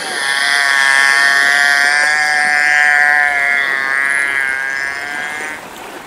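Beluga whale vocalising: one long, buzzy call at a nearly steady pitch that lasts about five and a half seconds and stops shortly before the end.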